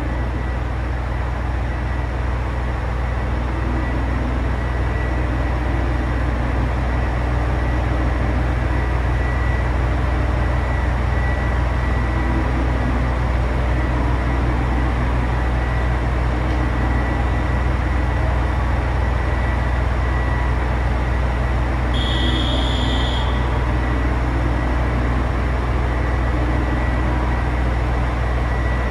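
JR Hokkaido H100 diesel-electric railcar's diesel engine idling at the platform, a steady low hum with a thin steady high tone over it. A brief higher tone sounds about 22 seconds in.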